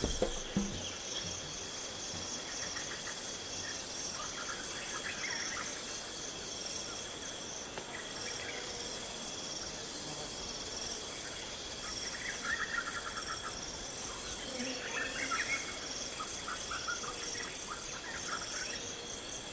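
Steady, high-pitched chorus of insects trilling in a fast pulsing rhythm, with short bird calls breaking in several times.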